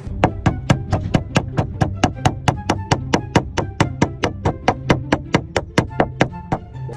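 A rapid, even series of sharp knocks, about four or five a second, starting just after the start and stopping about half a second before the end, over background music.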